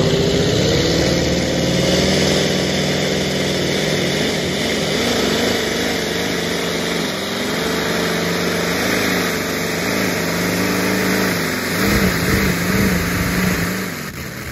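Competition pulling tractor's engine at full throttle, dragging a weight sled down the track. Its pitch climbs over the first two seconds, then holds with a wavering note, and the sound falls away near the end.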